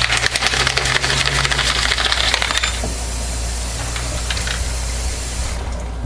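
Soap batter being poured and scraped between plastic measuring jugs: a quick run of small clicks and splashes for about three seconds, then quieter, with a couple of single clicks.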